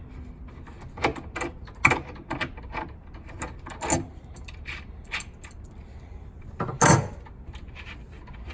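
Adjustable wrench turning the nut off a cabinet lock cylinder: irregular small metal clicks and clinks, with a louder clank about seven seconds in.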